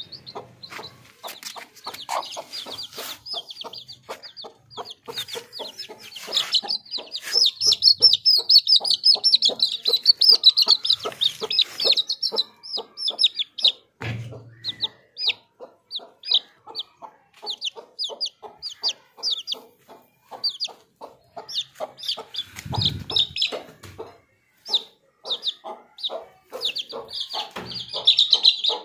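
Baby chicks peeping rapidly and continuously in high cheeps, over a mother hen clucking in a steady, even rhythm. The peeping is loudest from about seven to twelve seconds in and again near the end, and there are two brief low thumps.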